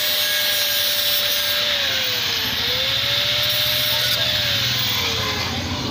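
Angle grinder cutting metal on a dismantled rotary compressor's motor, starting abruptly: a steady grinding hiss with the motor's whine over it. The whine dips in pitch about halfway through as the disc bites, recovers, then sags again near the end.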